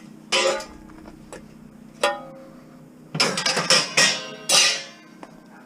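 Pieces of metal clanking and ringing as they are handled: a strike near the start, a ringing clang about two seconds in, then a quick run of clanks in the second half.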